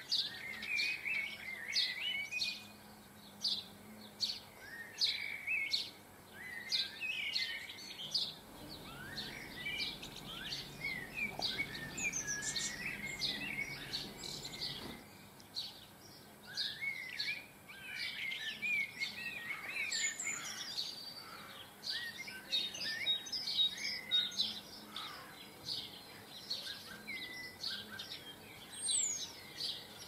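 Small garden songbirds chirping and twittering continuously in quick, high, repeated notes, several birds overlapping. A faint low rumble runs underneath from about a third of the way in to halfway.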